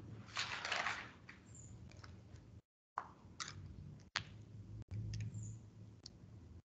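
Faint rustling and a few scattered sharp clicks, over a low steady hum. The sound cuts out to dead silence once briefly just before the middle, as a video call's noise suppression does.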